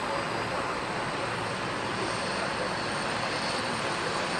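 Steady, even noise of an airliner's jet engines as the plane passes or rolls at the airport.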